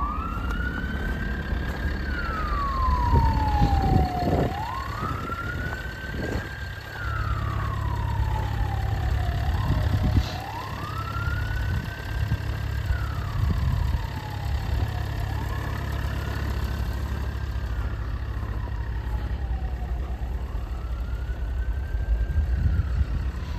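An emergency-vehicle siren wails slowly up and down, a full rise and fall about every four to five seconds. Under it runs the low, steady sound of a Renault Kadjar's 1.5 dCi (K9K) diesel idling after a cold start at −14 °C.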